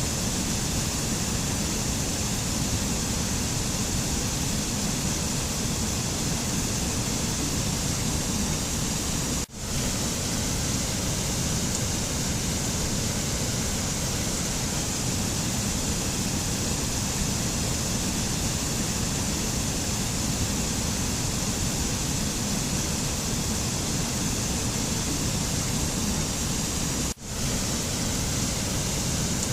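Steady, even rushing noise with no tones or rhythm, which cuts out for an instant twice: about nine seconds in and again near the end.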